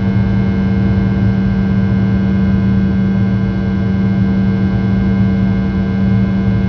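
Rolls-Royce Tay 650-15 turbofan engines of a Fokker 100 in flight, heard inside the cabin beside the rear-mounted engine: a loud, steady drone with a strong low hum and many higher steady tones over rushing noise.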